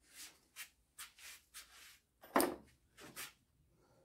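A series of short scuffing and rubbing sounds, the loudest about two and a half seconds in.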